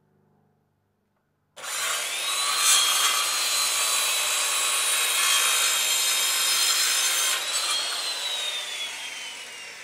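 Corded circular saw cutting across a 2x4 board: it starts suddenly about one and a half seconds in, its whine rising as it comes up to speed, then runs steadily through the cut. Near the end the cut finishes and the whine falls as the blade coasts down.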